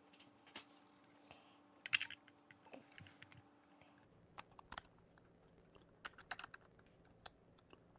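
Plastic Technic-style building pieces clicking as they are handled and pressed together. The clicks are small and irregular, with the loudest cluster about two seconds in.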